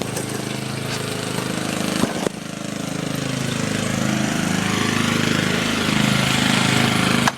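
Lawn mower's small petrol engine running steadily, with a brief knock about two seconds in, then growing gradually louder.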